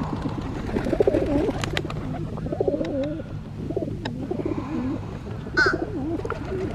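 Pigeons cooing close by, a continuous run of low warbling coos, with scattered light clicks and one short higher-pitched call a little over halfway.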